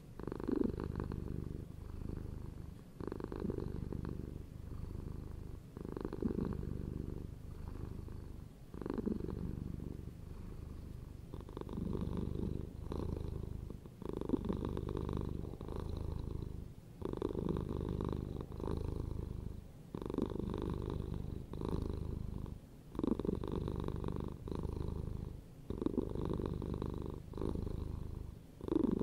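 Domestic cat purring steadily, the purr swelling and easing with each breath, about one breath every three seconds.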